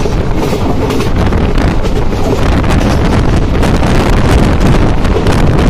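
Wind buffeting the microphone at the open window of a moving passenger train, over the steady rumble of the coach running on the track.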